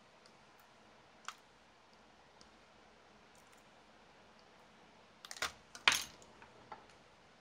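Small clicks of steel tweezers and tiny RC-car parts being handled on a cutting mat: one click about a second in, then a short clatter of several clicks and knocks near the end as tools and parts are set down and picked up.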